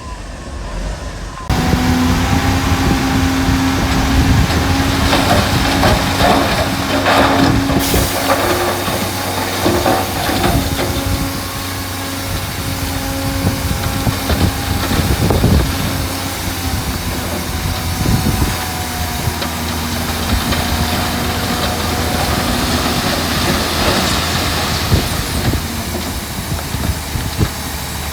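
Heavy diesel earthmoving machinery running under load, with repeated knocks and clatter of stone, densest in the middle of the stretch.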